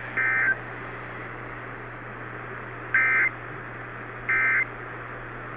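Emergency Alert System end-of-message data bursts: three short two-tone digital warbles about a second or more apart, with a fourth starting at the very end. They play over AM radio hiss and a steady low hum.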